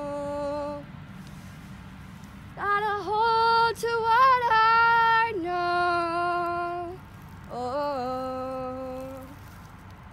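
A woman singing the closing phrases of a worship song. She holds a note, then after a pause sings short phrases that slide between pitches, with brief gaps between them; no words are made out.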